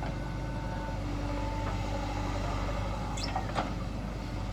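Backhoe loader's diesel engine running steadily at work, with two sharp metallic clanks a little after three seconds in.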